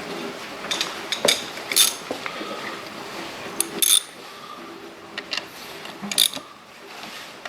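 Ratchet wrench clicking in short, scattered bursts as the camshaft cap bolts on a Honda CRF250 cylinder head are run down before torquing.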